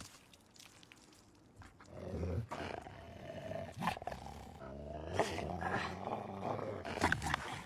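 A wolf growling and snarling: a low, rough growl begins about two seconds in and swells into louder snarls towards the end.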